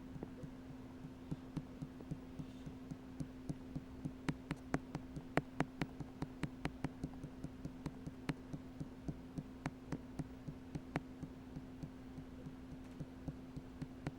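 VHS tape playback through the VCR and TV with a steady low hum and a run of sharp clicks about three a second, loudest in the middle. This is the noise of a tape that has lost its picture to white static.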